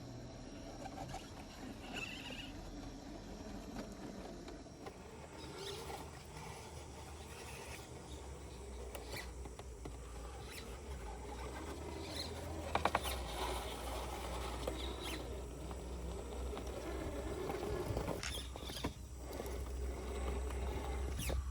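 Scale RC crawler's brushed electric motor and geared drivetrain whirring in short spurts as it crawls, with the tyres and chassis scrabbling and clicking over rocks and roots.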